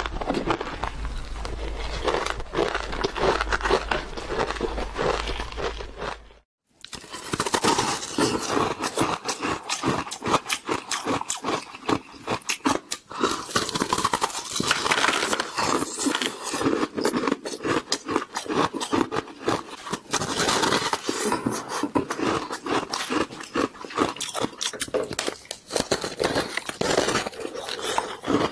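Close-miked crunching of crushed ice being bitten and chewed, a dense run of sharp crackles. It breaks off for a moment about six and a half seconds in, then goes on with bites into a large frozen ball of crushed ice. A low steady hum runs under the first part.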